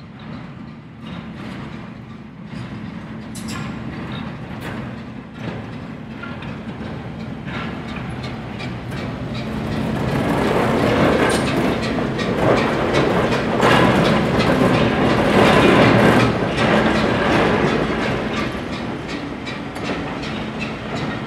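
A British Rail Class 08 diesel shunter's English Electric six-cylinder engine running as it hauls coaches past, building to its loudest about halfway through and then easing. The wheels click over rail joints and pointwork.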